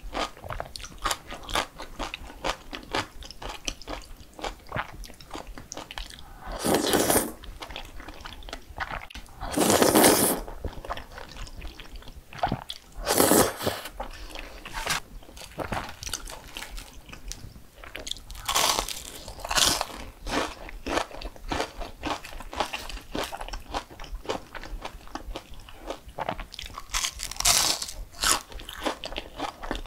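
Close-miked eating: rapid crisp crunching and chewing of crunchy food, with a few louder, longer stretches of sound along the way.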